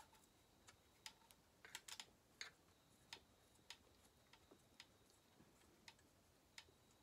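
Near silence with faint, irregular clicks and taps of small metal parts and hand tools being handled on a workbench, about one or two a second.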